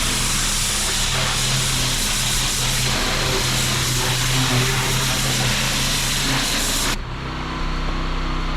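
A pressure washer's engine running steadily under the hiss of the water jet spraying a hard surface. About seven seconds in, the sound changes abruptly to a duller, slightly quieter version.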